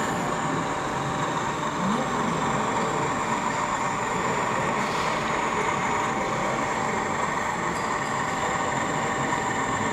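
OO gauge model Class 37 diesel locomotive running slowly, with a steady train-like engine sound, over the general hubbub of an exhibition hall.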